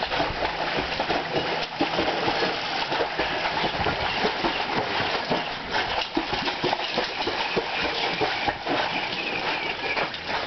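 Pit bull paddling hard in a pool, its front paws slapping and churning the water in quick, irregular splashes.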